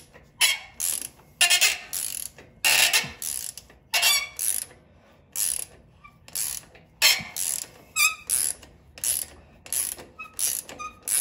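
Ratchet socket wrench being worked back and forth to unscrew the threaded brake-actuating rod on a tractor's brake, its pawl clicking in short bursts about twice a second.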